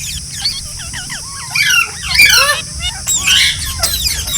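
Several green parrots chattering and squawking, a dense run of short, sharp chirps that rise and fall in pitch and overlap one another.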